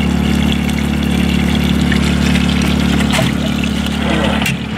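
A steady low mechanical hum with a fainter hiss of running water over it, dropping in level near the end.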